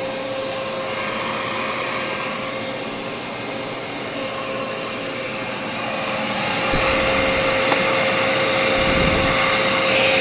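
Dirt Devil vacuum cleaner motor running steadily with a constant high whine. Its brushroll belt has come off, so the motor runs without driving the brush.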